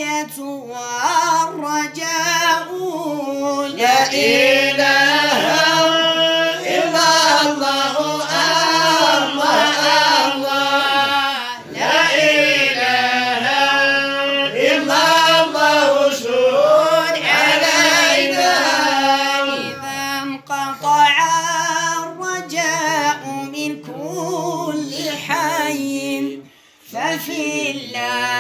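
Voice singing a madih nabawi, an Islamic devotional praise song for the Prophet, in long ornamented lines that glide up and down in pitch, with a short break near the end.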